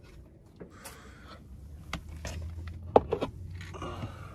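Small clicks and scrapes of a dog's food bowl and kibble being handled, with one sharp click about three seconds in, over a low steady hum.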